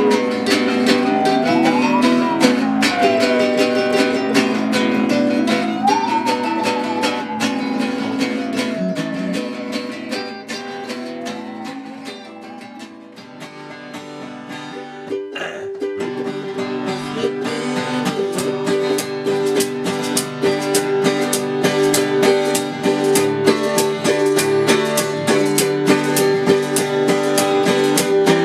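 Acoustic guitar music from a session take: strummed and picked chords, with a higher melody line sliding up and down in pitch over them in the first part. The playing drops away around halfway, a single knock sounds, and steady strumming builds back up.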